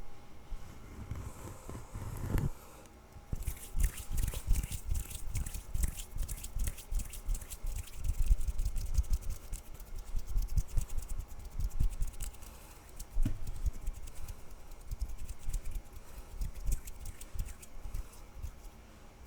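Hands rubbing and tapping close to the microphone: a dense, irregular run of crackling taps and low bumps, starting about three seconds in and thinning out near the end.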